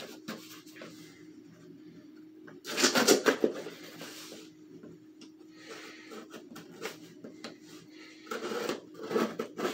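Cardboard shipping box being torn open by hand: a loud tearing rasp about three seconds in, soft scraping and rustling of the cardboard, then another tearing burst near the end.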